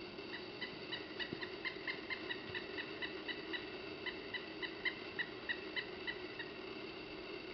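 Pileated woodpecker giving its long series of short, loud "wuk" calls, about three to four notes a second for some six seconds. It is a territorial call, which the uploader reads as warning a blue jay off the suet log.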